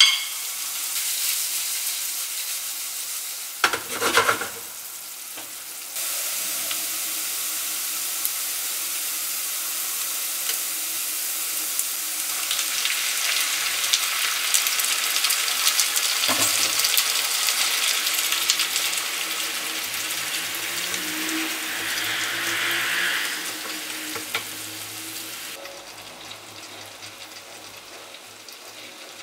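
Onions, green peppers and chopped tomatoes sizzling in oil in a frying pan on an electric hot plate, a steady sizzle with a short clatter about four seconds in. The sizzle grows fainter near the end.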